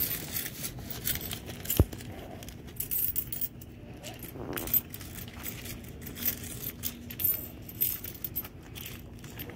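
Handling noise of cash and small items passed across a counter: scattered clicks, taps and rustles, with one sharp knock a little under two seconds in.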